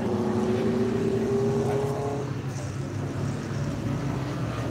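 Air-cooled VW Beetle race cars running on the circuit at a distance: one engine climbs slowly in pitch as it accelerates for about two seconds, then fades, over the steady drone of other engines.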